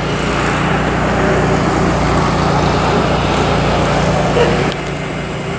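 An engine running steadily with a low hum, dropping somewhat in level near the end.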